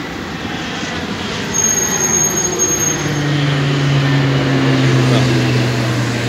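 A large airliner flying low overhead, hidden by the trees. Its jet roar builds up and peaks about four to five seconds in. A high whine is heard early, and low engine tones slide slowly down in pitch as it passes.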